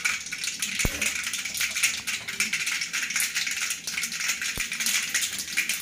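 Mustard seeds crackling and popping in hot oil in an aluminium kadai, over a steady sizzle: a dense, rapid crackle of tiny pops. This is the spluttering of a tempering (tadka), the sign that the oil is hot enough.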